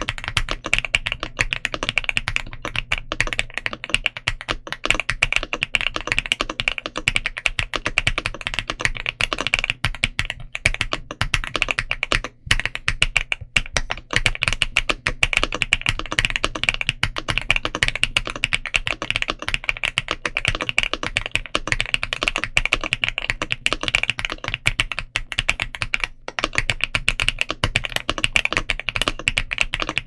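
Continuous fast typing on a stock Ajazz AC100 aluminium 1800-layout mechanical keyboard with PBT Cherry-profile keycaps: a dense stream of keystrokes, with two short pauses, about twelve seconds in and near the end.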